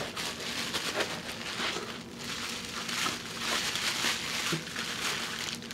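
Packaging being handled and unwrapped: a continuous run of irregular crinkling and rustling.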